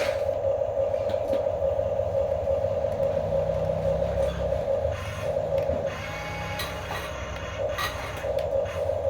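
Electric gear motors of Huina radio-controlled toy construction vehicles whining steadily over a low gearbox rumble, cutting out briefly a few times, with light scraping clicks.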